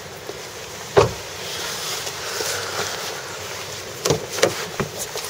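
Handheld camcorder handling noise: one sharp thump about a second in, then a steady rustle and a few lighter knocks near the end.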